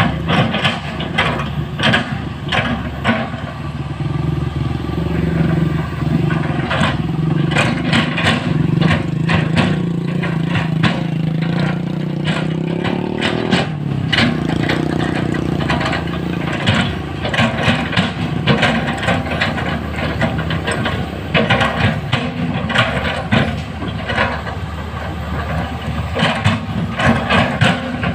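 Large Komatsu PC-series hydraulic excavator working: its diesel engine runs steadily under load while the bucket clanks and scrapes on rock and soil again and again. The engine note dips and shifts about halfway through, then carries on.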